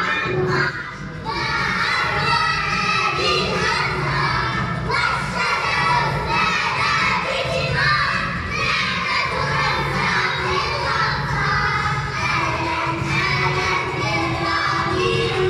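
A group of young children shout-singing loudly together, many voices at once, chanting a song in unison.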